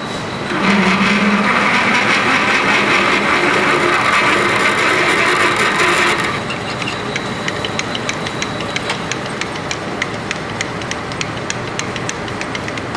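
Machine tool cutting metal in a shop: a loud steady cutting noise for about six seconds, then it drops to a quieter running with a regular ticking.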